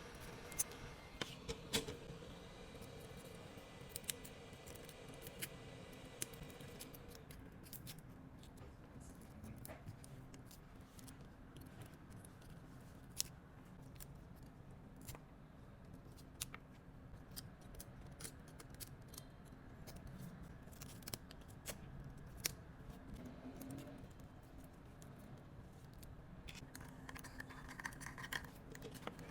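Faint, irregular clicks, snips and scrapes of small hand tools at work on a phone, with a low steady hum underneath.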